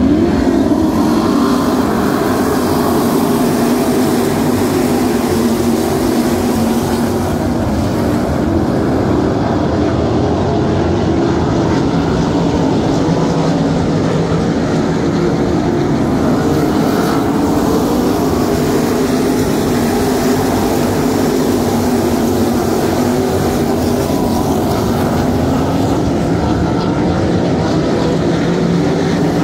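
A field of 305 cubic-inch V8 sprint cars running together on the track, a loud, steady drone of many engines whose pitch wavers slowly up and down as they circle.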